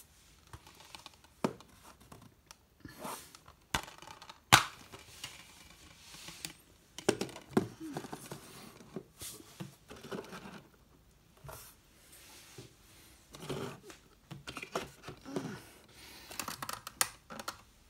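A plastic Blu-ray case being opened and its discs handled by hand: rustling and scraping of plastic and cardboard with scattered sharp clicks, the loudest about four and a half seconds in.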